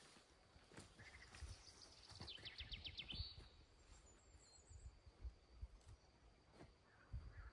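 Faint birdsong: a small bird sings quick runs of repeated high notes, the clearest a rapid trill of about ten notes in a second, two to three seconds in. A few soft clicks and low rumbles sit under it.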